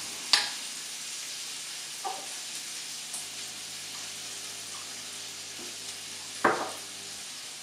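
Lard melting and sizzling in hot cookware on the hob, a steady frying hiss. A sharp tap comes just after the start, and a louder knock about six and a half seconds in.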